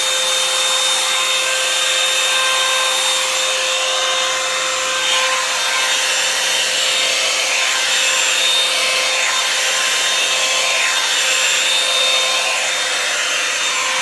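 Revlon Salon hair dryer and styler (hot-air paddle brush) running steadily with a constant fan whine as it is pulled through the hair.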